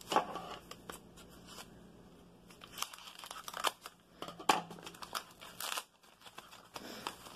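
Scissors snipping and paper packaging crinkling and tearing as a parcel is cut open: a scatter of irregular short snips and rustles. The scissors are laid back on the wooden desk.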